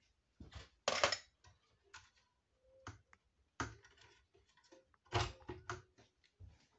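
Irregular clicks, taps and scrapes of a screwdriver and metal parts being handled on the BMW i3 inverter's metal casing as its cover is worked loose, with a couple of louder clatters about a second in and about five seconds in.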